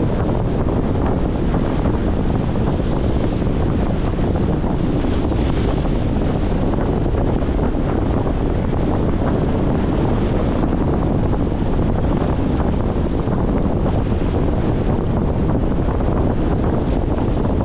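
Strong wind buffeting the microphone in a steady low rumble, with choppy wind-driven waves lapping and splashing against a concrete shoreline.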